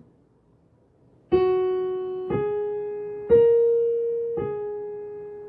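Piano playing a short teaching pattern on the black keys: four single notes about a second apart, stepping up twice and then back down one, each left to ring and fade.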